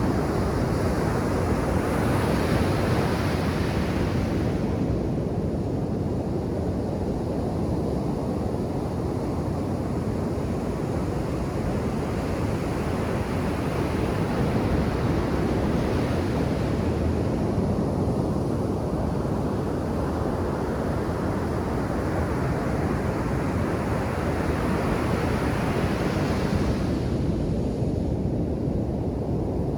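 Ocean surf on a beach: a steady low rumble of waves. The hiss of breaking and washing water swells in the first few seconds and again from about halfway, building until it cuts off near the end.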